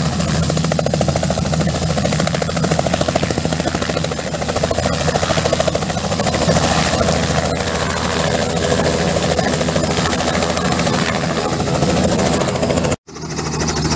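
Robinson R66 helicopter's turboshaft engine and main rotor, loud and steady, with a rapid, even rotor-blade beat as it hovers low and sets down. The sound drops out abruptly for an instant near the end.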